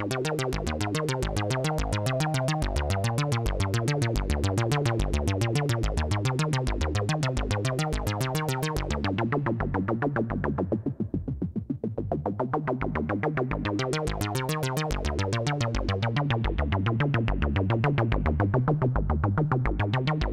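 Erica Synths Polivoks-style modular synthesizer playing a fast sequenced pattern of repeating notes through its Polivoks filter. About nine seconds in the treble drops away as the filter closes, dulling the notes, then it opens up again a few seconds later and dips once more near the end.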